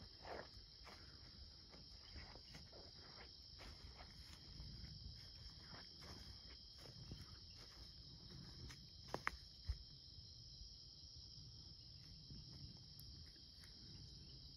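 Steady high-pitched chorus of night insects, faint, with soft footsteps through leaf litter and undergrowth and a couple of sharper clicks a little after nine seconds in.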